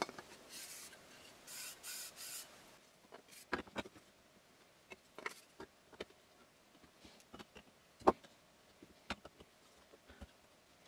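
3D-printed plastic slider with a sanded-in bushing sliding back and forth on a steel rod: a few short rasping rubs in the first couple of seconds. Then light knocks and clicks as steel rods and plastic parts are set into place, the loudest about eight seconds in.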